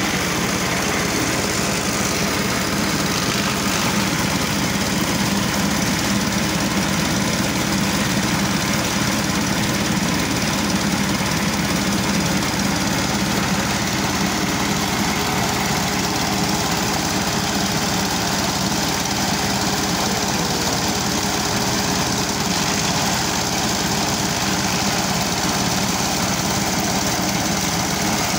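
Engine of a forage chopper for dragon fruit stems running steadily at a constant speed.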